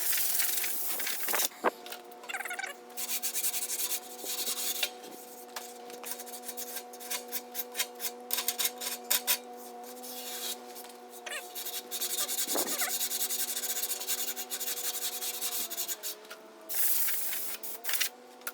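Hand sanding of hardened body filler on a bus bumper: irregular runs of short rasping sandpaper strokes, with a steady low hum underneath.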